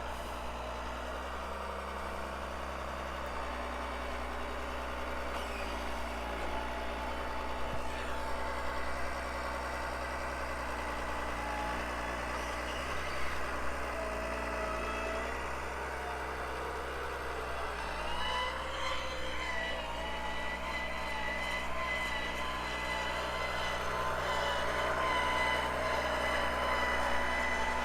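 A vehicle engine running steadily, with a faint whine above it; it grows a little louder in the last third.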